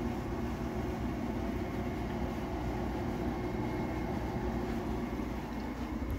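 Haier 5,000 BTU window air conditioner's fan running on high: a steady rush of moving air over a low hum, with water in the base being slung by the fan.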